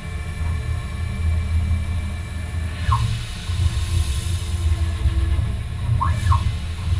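CNC lathe running with a steady low hum from the spinning spindle and brass workpiece. About three seconds in, a short whine rises and falls as the axis drives move the toolpost in. Near the end, two more short whines come as the internal threading tool is positioned in the brass tube's bore for a threading pass.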